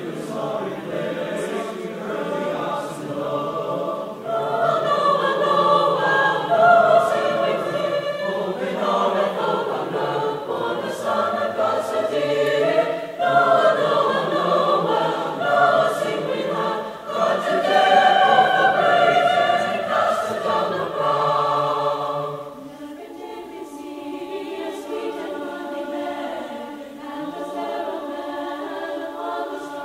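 Mixed choir singing in sustained harmony. About three-quarters of the way through, the singing turns softer and the low voices drop out, leaving the higher parts.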